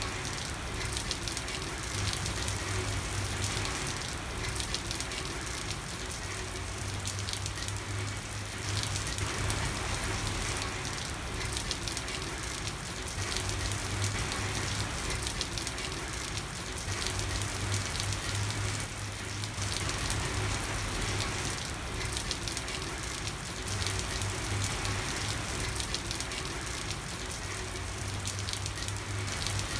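Steady rain falling on a street: a dense, even patter of drops, with a low hum that comes and goes every few seconds.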